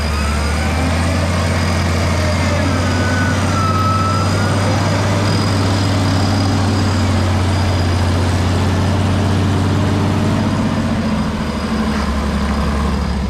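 Off-road Jeep's engine running steadily at low revs as it crawls through mud.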